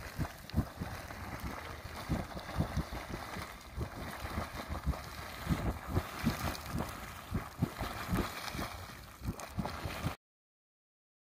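Small geyser erupting: a steady rushing and splashing of water thrown up from the vent, with wind buffeting the microphone in low gusts. The sound cuts off abruptly about ten seconds in.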